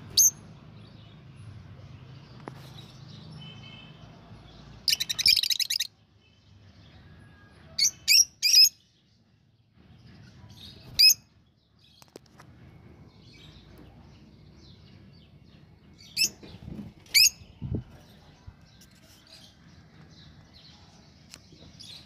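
Budgerigars calling with short, sharp, high chirps at scattered moments, three in quick succession about eight seconds in, and a short buzzy burst about five seconds in.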